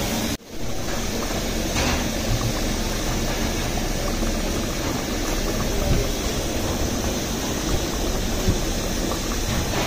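Chicken curry boiling hard in a metal pot on a gas stove: a steady bubbling hiss, with a brief cut-out about half a second in.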